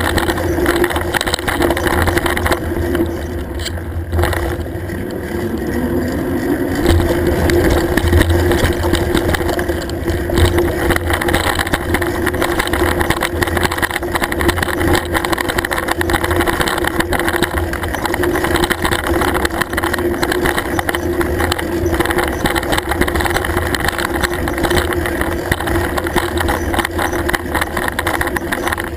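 Mountain bike climbing a dirt singletrack, heard through a handlebar-mounted camera: continuous rumble and rattle from the tyres and bike over the rough trail, with a steady hum underneath.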